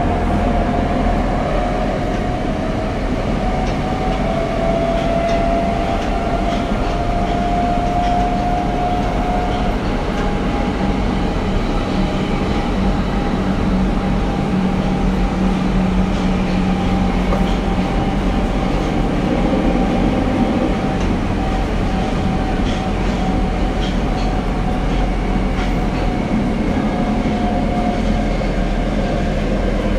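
Tokyo Metro 02 series subway car heard from inside while running: a steady rumble of wheels on rail under a motor whine that drifts slightly in pitch, with light rail-joint clicks.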